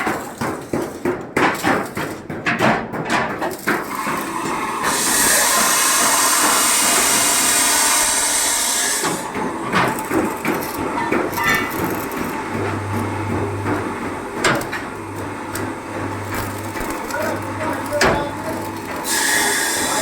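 Metal workshop noise: a quick run of knocks like hammering, then a loud steady hiss for about four seconds, then scattered knocks and a low hum that switches on and off several times.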